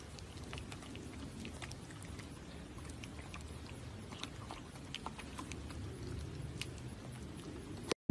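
Two horses mouthing and nibbling at each other's lips: faint, irregular soft smacks and clicks over a quiet background hiss, cutting off abruptly near the end.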